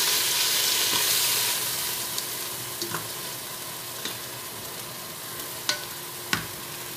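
Kangkung (water spinach) sizzling in hot oil in an electric rice cooker's pot as it is stirred. The sizzle dies down after the first couple of seconds, and several light clicks of the stirring utensil against the pot follow.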